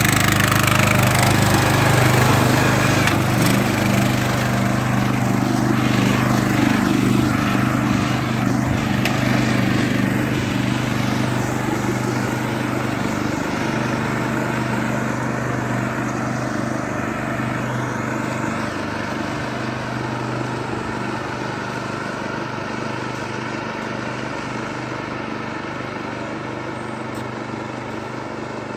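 Craftsman lawn tractor's Briggs & Stratton engine running at a steady speed while the mower drives, growing gradually fainter as it moves away.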